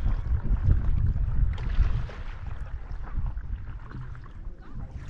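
Wind rumbling on the microphone while a stand-up paddleboard is paddled through the water, with water swishing from a paddle stroke about two seconds in. The wind rumble eases in the second half.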